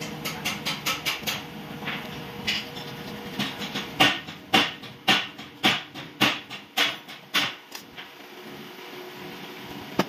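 A series of sharp knocks from hand work on a starter motor. A quick run of light taps comes first, then about eight louder strikes at roughly two a second, which stop a couple of seconds before the end.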